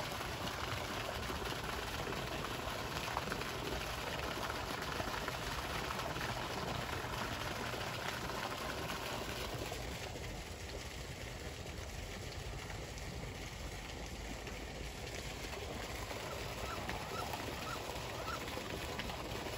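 Steady rush of running water from the pond, dimming somewhat about ten seconds in. A few faint short calls near the end.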